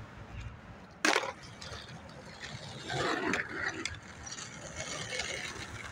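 Skateboard: one sharp clack of the board on pavement about a second in, then the wheels rolling and rattling over rough asphalt.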